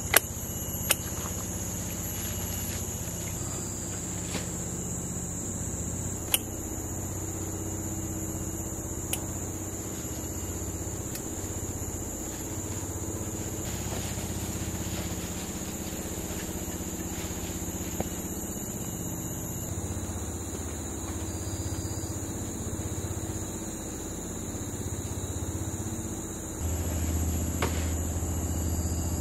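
Steady high-pitched insect chorus over a low, steady rumble, with a few sharp clicks in the first several seconds and a short swell of low rumble near the end.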